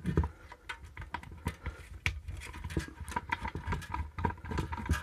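Phillips screwdriver backing small screws out of a flimsy sheet-metal reflector inside an LED floodlight's metal case: a dense, irregular run of small clicks and ticks as the tip works the screws and the thin reflector shifts under the hand.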